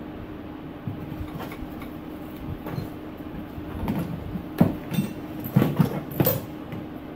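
Irregular metallic clanks, clicks and rattles of hand tools and metal parts being handled in a car's engine bay, loudest in a cluster from about four to six and a half seconds in, over a steady low hum.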